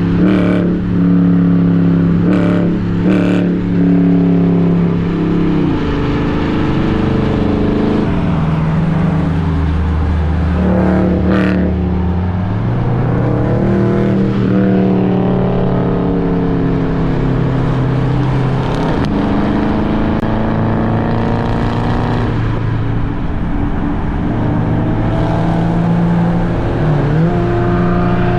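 Muscle-car V8 engines running loud and revving, their steady exhaust note shifting pitch several times, with a few short sharp cracks in the first few seconds and again around the middle.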